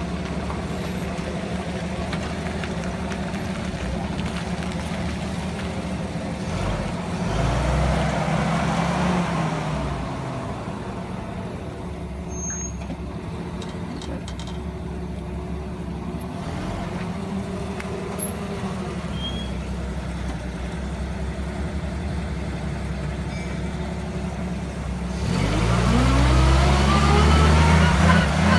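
TUG baggage tractor's engine running as it is driven, revving up about seven seconds in and settling back, then revving up again and getting louder near the end as the tractor pulls in close.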